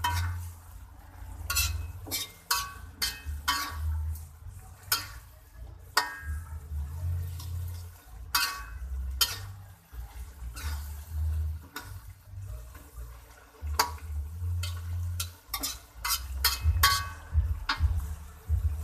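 A spatula knocking and scraping against a pan while food is stirred, in many irregular clicks, over an intermittent low rumble.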